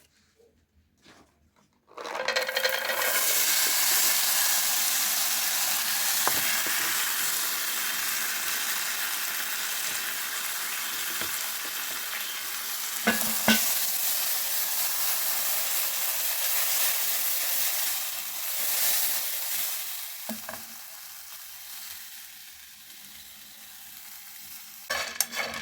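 Groundnuts (peanuts) sizzling in a hot pan while being stirred. The sizzle starts suddenly a couple of seconds in and dies down near the end.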